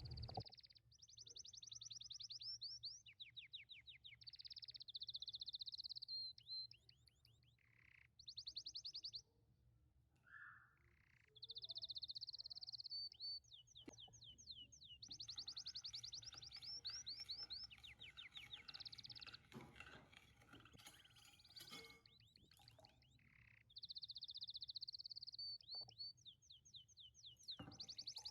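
Faint songbirds singing: phrases of rapid, high trills and chirps that come and go with short pauses, over a low steady hum.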